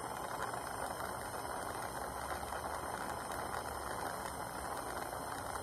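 Acetylene torch with a #1 tip burning steadily, an even rushing noise from the flame held on a silver ring's seam to heat it until the solder flows.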